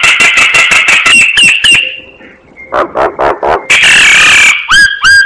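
Crested myna song: a fast run of harsh clicks and chattering notes, a loud rasping screech about four seconds in, then short whistled notes that slide up and down near the end.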